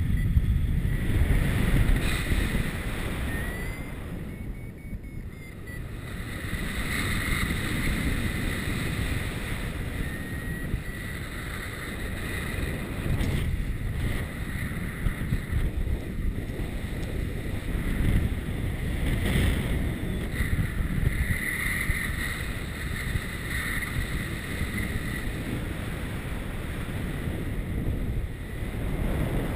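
Airflow buffeting the microphone of a camera on a paraglider in flight, a steady rumbling rush that swells and eases. A thin high tone comes and goes over it, sliding up and down in pitch.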